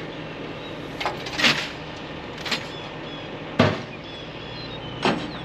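Slow footsteps over grass, one short scuff about every second, over a low steady engine hum, with faint high bird chirps.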